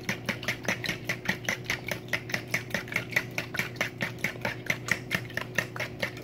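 A fork beating eggs and milk in a plastic mixing bowl, the tines clicking against the bowl in a fast, even rhythm of about five taps a second.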